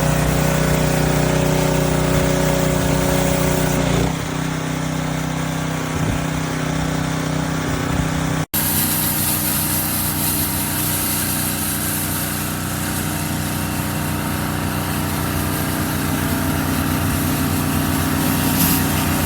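Small gas engine of a pressure washer running steadily, with the hiss of the spray over it. The engine note shifts about four seconds in, and there is a brief break about eight seconds in.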